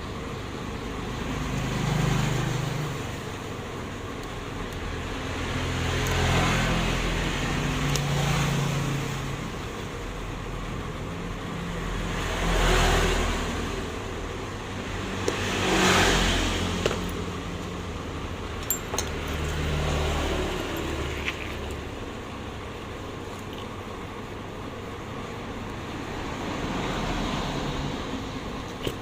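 Road traffic: vehicles passing by one after another, each a swell of engine and tyre noise that rises and fades over a few seconds. A few small sharp clicks come in the last third.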